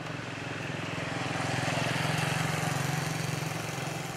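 Small motorcycle engine running with a fast, even putter, growing louder toward the middle and easing off near the end, over street traffic noise.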